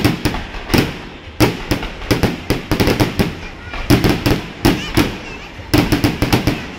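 Aerial firework shells bursting overhead: dozens of sharp bangs in quick, irregular succession, about three or four a second, with a brief lull about a second in.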